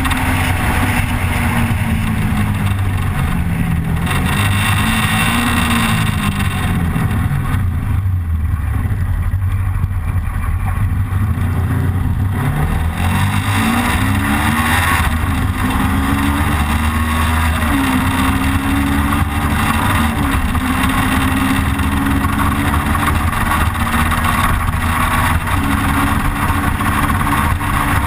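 Motorcycle engine running at road speed, its pitch falling and rising several times with changes in throttle, and climbing from about thirteen seconds in. Heavy wind rush over the camera mounted on the bike.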